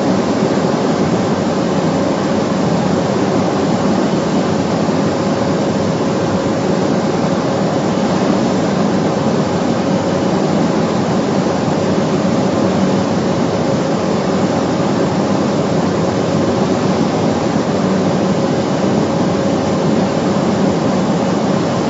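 Cessna 208B Caravan's single PT6A turboprop engine and propeller droning steadily, heard inside the cockpit, with a steady whine running through the noise.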